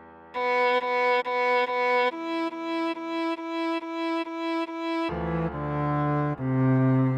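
Cello playing a slow melody: a run of evenly repeated notes, then a longer run of repeated notes a step lower, about two to three notes a second. About five seconds in it drops to the low register for a descending line of single notes.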